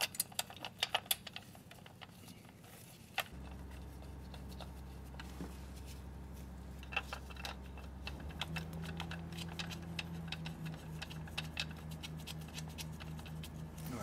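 Small metal clicks and clinks of hand tools, bolts and timing-chain parts being handled in an open engine bay. They are busiest in the first second, with a sharp click about three seconds in. From about three seconds in a steady low hum runs underneath.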